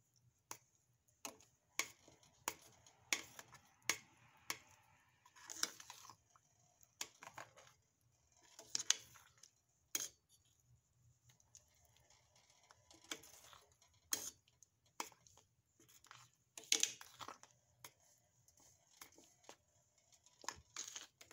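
Metal spoon scraping and clinking against a stainless steel saucepan while stirring thick grits, in irregular sharp clicks and short scrapes.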